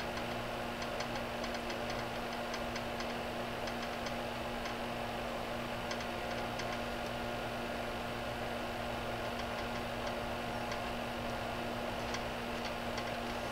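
Steady low hum of a small fan running, with faint scattered ticks as a soldering iron heats flux and solder on the copper pads of an LED light strip.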